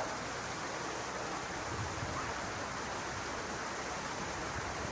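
Steady rushing of running river water, an even noise with no breaks.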